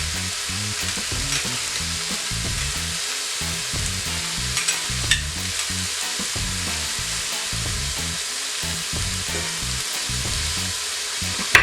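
Sliced onion, carrots and peppers sizzling in hot oil in an Instant Pot on its sauté setting, a steady frying hiss. A few short clicks come about four and five seconds in and again at the end.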